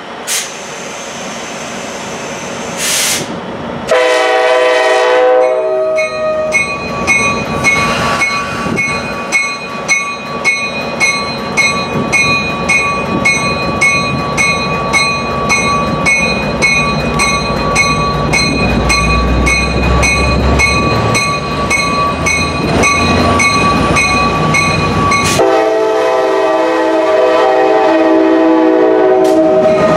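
EMD F59PHI diesel locomotive arriving on a passenger train: a short blast of its multi-chime horn, then its bell ringing steadily for about twenty seconds. The deep diesel rumble swells as it passes, and a long horn blast starts near the end.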